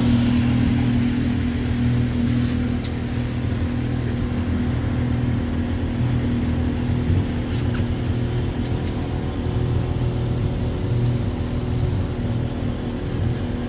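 Small fishing boat's outboard motor running steadily underway, a constant low drone over the rush of water past the hull.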